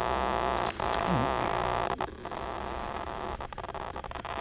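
Rustling, static-like hiss of grass blades and a hand brushing against the camera's microphone as it is set down at ground level. It drops to a quieter hiss about two seconds in, with a few light clicks of handling.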